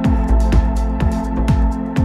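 Electronic background music: a steady kick-drum beat, about two beats a second, with crisp percussion hits over held synth chords.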